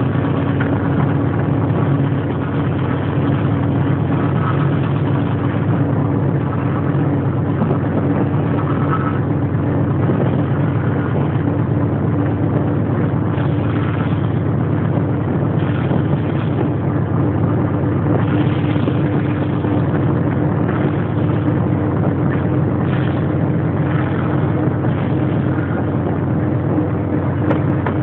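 Diesel locomotive running steadily under way, its engine a constant low hum over the rumble of the moving train, heard from outside the cab's side window.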